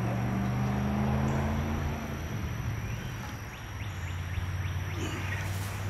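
A steady low drone from a motor running in the background, its higher tone dropping away about two seconds in. A short run of faint, evenly spaced ticks comes about three seconds in.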